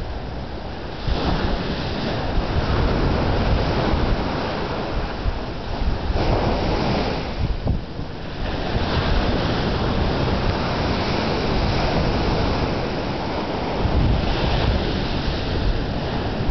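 Ocean surf washing in, swelling every few seconds, with wind rumbling on the microphone.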